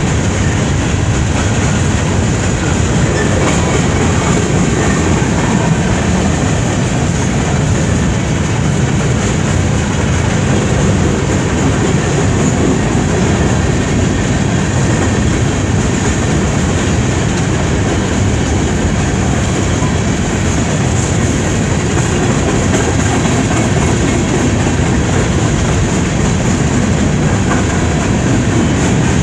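Empty coal cars of a Union Pacific freight train rolling steadily past on steel wheels and rails.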